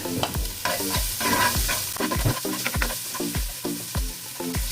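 Garlic and ginger sizzling in hot oil in a granite-coated pan, a steady frying hiss that is strongest about a second in. Background music with a steady beat plays over it.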